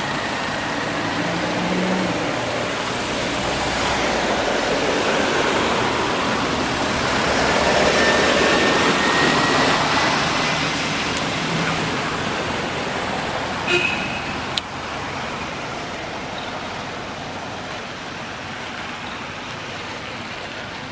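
Steady outdoor background hiss, swelling louder toward the middle and easing off again, with two short clicks about two-thirds through.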